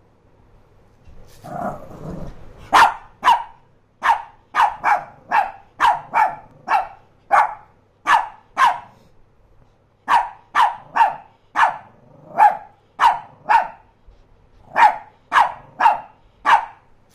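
Small dog giving a short low growl, then barking sharply some two dozen times in quick bursts with brief pauses: nervous barking at a new toy it is scared of.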